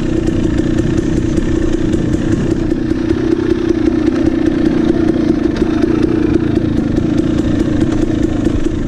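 KTM 300 XC two-stroke single-cylinder dirt bike engine running at a steady throttle while riding over rough single track, with light rattling and clatter from the bike.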